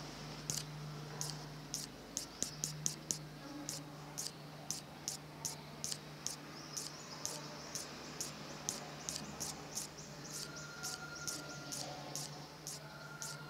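An insect chirping in short, high-pitched pulses, about two a second, over a steady low hum.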